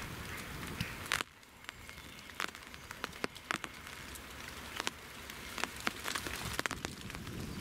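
Rain pattering, with irregular sharp drops ticking close to the microphone over a steady hiss; the hiss falls away about a second in and slowly builds again.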